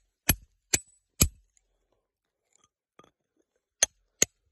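A hammer striking a steel chisel held against rock: three sharp strikes about half a second apart, then after a pause two more near the end, some leaving a brief high metallic ring.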